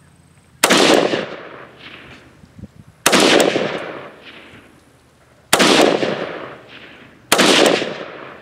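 Zastava ZPAP M90PS 5.56 mm rifle fired four single aimed shots, about two seconds apart, each loud crack trailing off over a second or more.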